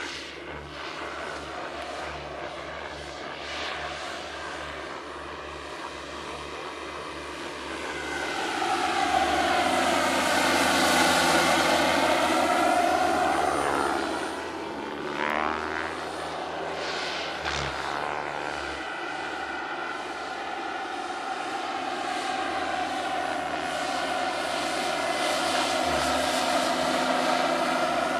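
Turbine-powered scale RC model helicopter (a Eurocopter EC-145) in flight: a steady turbine whine over the rotor sound. It grows louder for a few seconds in the middle as the model comes closest, its pitch bending as it passes and turns, then swells again near the end.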